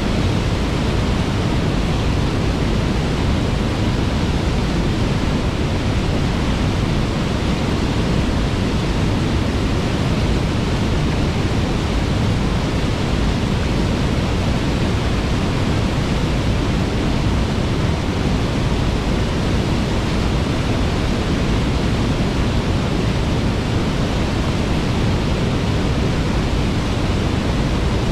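Waterfall rushing: a loud, steady, even wash of falling water.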